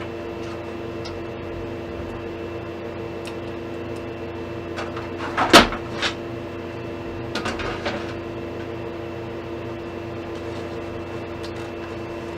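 Knocks and clatter of a computer case's panels and parts being handled: one sharp knock about halfway through, another just after, then a short run of lighter knocks, over a steady background hum.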